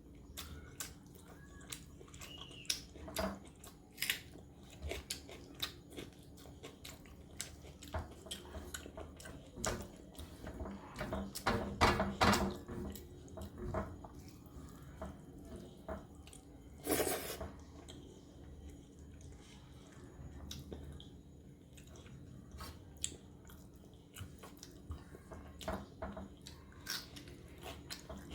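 Close-miked eating: chewing and soft wet mouth sounds with many scattered small clicks, as a meal of rice, dal and fried vegetables is eaten. There are louder bursts of chewing a little before the middle and again past the middle.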